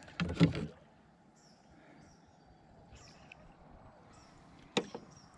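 Faint bird chirps over a quiet outdoor background, with a short loud sound in the first second and a sharp click followed by a smaller one near the end.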